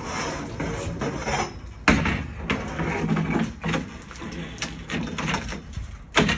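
Metal scaffolding being handled: clanks and rattles of scaffold parts, with a sharp knock about two seconds in and another loud one near the end.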